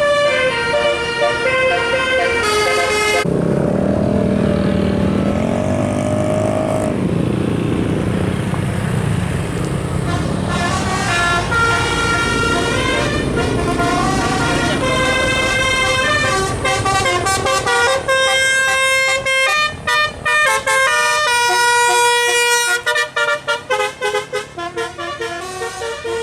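Telolet multi-tone musical air horns playing tunes, several horn notes stepping from pitch to pitch. A few seconds in, a lower, wavering horn tone holds for about four seconds. Near the end the horn breaks into quick, choppy toots.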